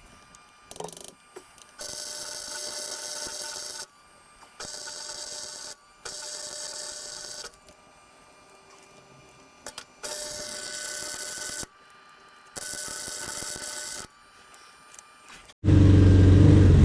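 MIG welder arcing in six short bursts of crackling hiss, each one to two seconds long, as the spider gears of a rear differential are welded; the welder later blames too low a wire feed speed for the welds puddling and cutting in and out. Near the end a much louder engine rumble starts abruptly.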